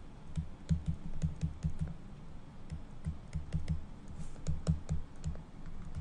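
Pen stylus tapping and scratching on a tablet's surface while writing words by hand: an irregular run of short, soft taps and clicks, several a second.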